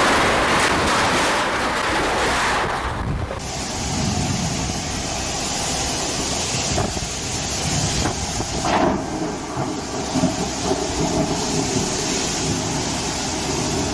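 Storm noise: wind and rain rushing steadily, changing abruptly about three seconds in to a duller rush of the same kind.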